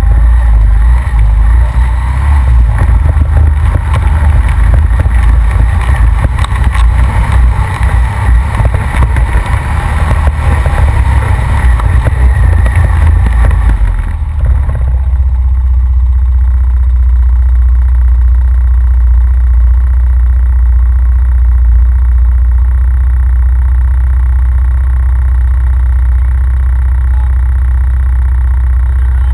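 Honda Rancher ATV engine heard from a rack-mounted GoPro, running through mud trails. For the first half it is rough and clattering with much higher-pitched noise. About halfway it changes abruptly to a steady, low drone.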